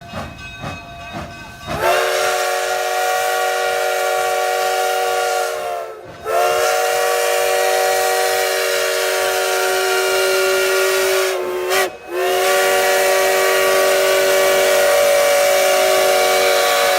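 Steam whistle of Durango & Silverton No. 481, a K-36 narrow-gauge steam locomotive, blowing three long blasts. The first comes about two seconds in and the others about six and twelve seconds in. Each blast swoops up in pitch as it opens and then holds steady, with a short break between them.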